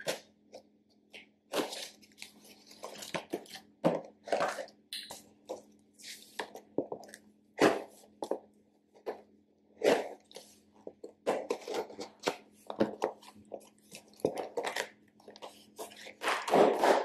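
Cardboard shipping box being cut open with scissors and pulled apart by hand: packing tape and cardboard crackling and tearing in irregular bursts.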